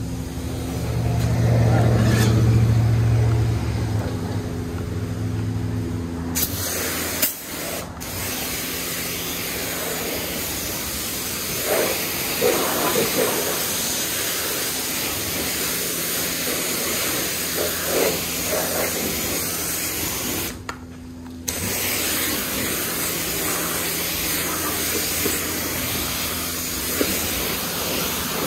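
Self-serve car wash pressure wand spraying water onto a car's body, a steady hiss that starts about six seconds in and breaks off for about a second around twenty seconds in when the trigger is let go. Before the spray starts there is a loud low machine hum for the first several seconds, and a faint hum stays underneath throughout.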